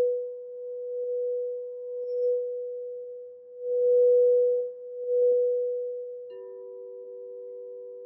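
Crystal singing bowl sung with a mallet around its rim: one steady, pure tone that swells and fades as the mallet circles. About six seconds in, a second, lower-pitched bowl starts sounding and rings on together with the first.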